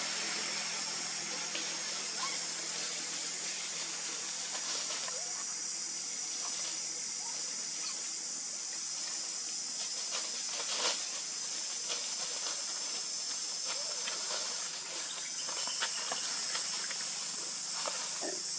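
Steady high-pitched hiss throughout, with a few faint clicks and knocks over it, one a little louder about eleven seconds in.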